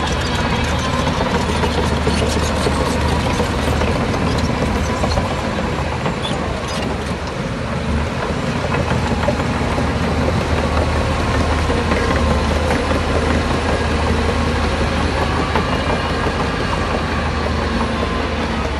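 Heavy diesel engine of earthmoving machinery running steadily with a deep, even hum, a few light clanks on top.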